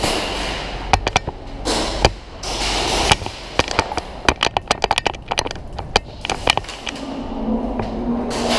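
Airsoft gunfire: irregular sharp cracks of shots and BB hits, many in quick runs, over a rushing noise of the player on the move.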